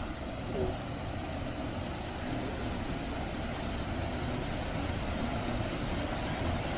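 A waterfall, still flowing and not frozen, pouring into an ice-edged pool: a steady rush of water.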